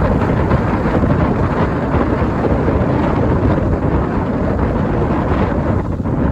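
Gusty wind of 30–40 mph blowing hard across the microphone: loud, steady low rumbling noise.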